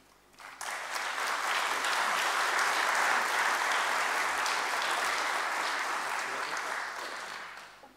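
Audience applauding: the clapping rises within the first second, holds steady, and dies away over the last second or so.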